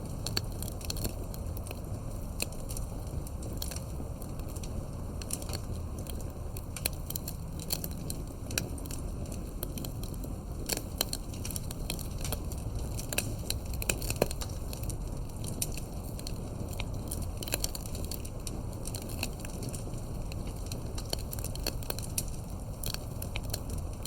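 Campfire burning, the wood crackling with frequent irregular sharp pops and snaps over a steady low rumble of the flames.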